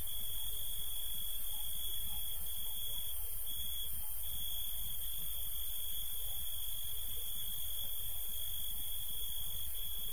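Steady high-pitched electronic whine over hiss and a low hum, with no music. It is noise left in the audio of a digitized tape recording that has sound problems.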